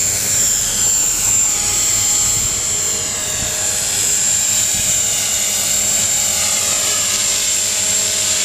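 HK 450 clone of the Align T-Rex 450, an electric RC helicopter, in flight: a steady high whine from the motor and gears over the continuous whir of its rotor blades.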